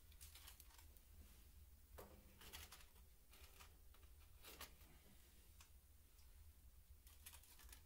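Faint, scattered metal scrapes and clinks of fire tongs working inside a coal stove's firebox, fishing out clinkers, over a low steady hum.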